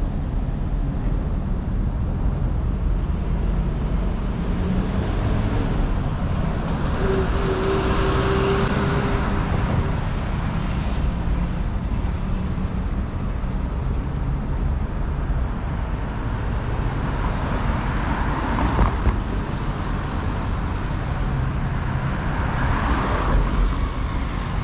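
City road traffic: a steady rumble of cars and trucks, with louder vehicles swelling past about eight seconds in, near the middle and again near the end.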